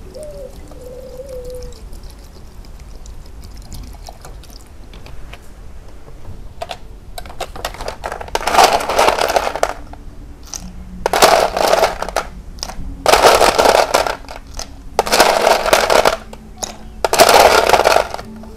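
Ice cubes being tipped into a pot of water and melon, in five loud splashing, clattering bursts of about a second each through the second half.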